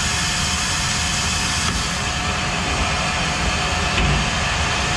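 Steady rushing noise with a low rumble from a running workshop machine fan, such as a laser cutter's air extraction, holding an even level throughout.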